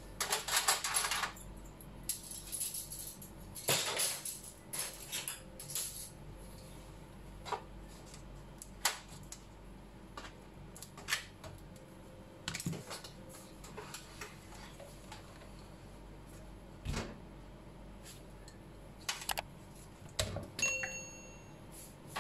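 LED backlight strips from a Samsung UA49M5100AK TV clattering and clicking as they are handled and laid against the TV's metal back chassis. Two longer rattles come near the start, followed by scattered single clicks and taps.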